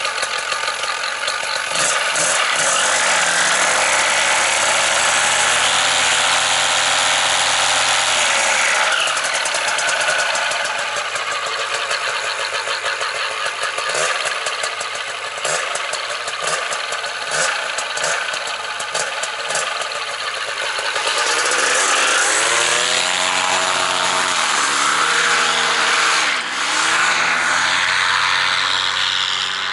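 Paramotor engine and propeller running. The pitch rises at about two seconds in, holds, then drops near the eight-second mark. In the last third the engine pitch rises and falls several times.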